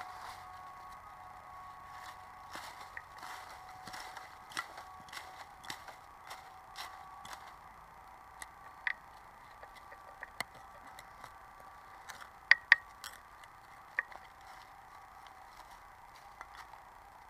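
Hand trowel digging into soil and leaf litter: irregular scrapes and sharp clicks as the blade strikes earth and small stones, the loudest a quick pair of clicks a little past the middle. A faint steady electronic tone runs underneath.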